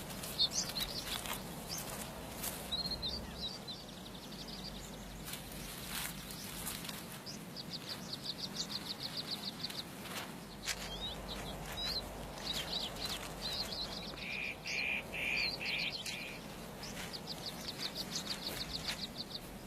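Songbirds singing: short high chirps and rapid trills of quickly repeated notes, with a run of four or five lower, louder notes a little past the middle.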